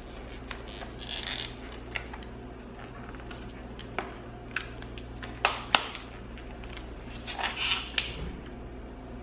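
Slime being handled in a plastic tub and its plastic film peeled back and lifted: scattered sharp clicks and crinkles, with a short crinkling rustle about a second in and again near the end.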